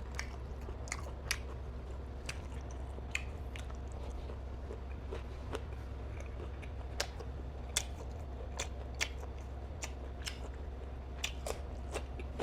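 Chewing and mouth sounds of someone eating nem chua, the chewy Thanh Hóa fermented pork roll: short, sharp smacks and clicks coming irregularly, a couple a second.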